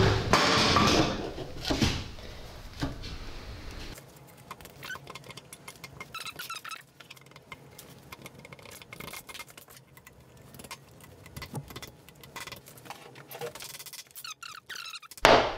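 Piston in a ring compressor being worked into a cylinder bore of a John Deere B engine block: metal sliding and scraping, loudest in the first two seconds, then light clicks and squeaks as it is positioned, with one sharp knock about a second before the end.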